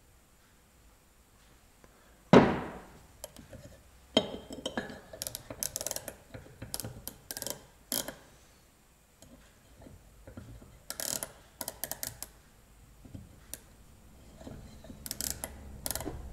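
Hardened steel parallel bars and a micrometer being handled on a wooden workbench: one loud knock about two seconds in, then runs of small metallic clicks and clatter as the micrometer is set on and slid along a bar.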